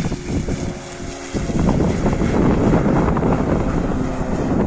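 Gusty wind buffeting the microphone: a loud, irregular low rumble that strengthens about a second and a half in, with a faint steady hum under it at first.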